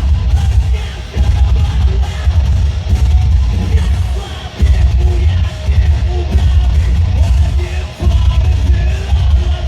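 Loud live band music in a heavy rock style, with pounding drums and bass, and a singer yelling over it. The low end drops out for a moment three times, about a second in, halfway through and near the end.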